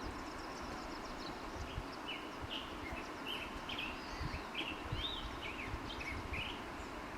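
A bird chirping: a dozen or so short, high notes in an irregular run starting about a second and a half in, over a steady low outdoor rumble.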